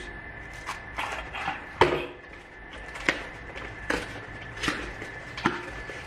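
Hands rummaging in a small cardboard box and handling plastic-bagged lock parts: a string of short clicks and crinkles, about one a second, the loudest near two seconds in.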